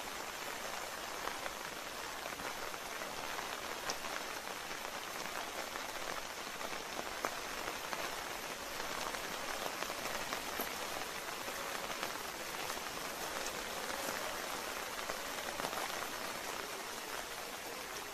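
Steady heavy rain falling, an even hiss with scattered single drops ticking close by.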